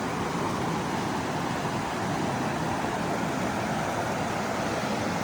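Steady rush of the North Fork Virgin River's flowing water.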